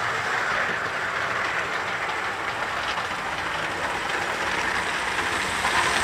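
Model trains running on the layout's track: a steady whirring running noise from the locomotives' motors and wheels, growing a little louder near the end as the trains approach.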